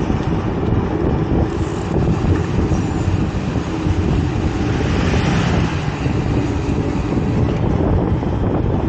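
Wind buffeting the microphone of a camera riding on a moving bicycle, a steady low rumble with a brief rise in hiss about five seconds in.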